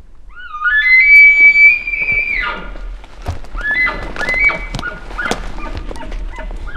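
Elk bugle: a loud, high whistle that rises from a lower start, holds for about two seconds, then drops, followed by a run of short, lower notes.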